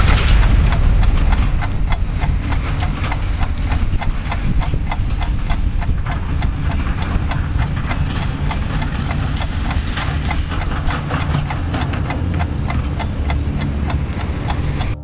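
Tracked excavator on a demolition site: its diesel engine running with a steady low rumble under rapid, fairly even clanking, about four knocks a second, with a sharp bang at the very start.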